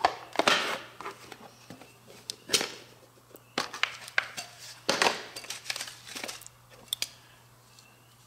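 Paper crinkling and sharp plastic clicks and knocks as a digital caliper's hard plastic case is handled, unwrapped and opened on a bench and the caliper lifted out. The sounds come in short separate bursts and die away near the end.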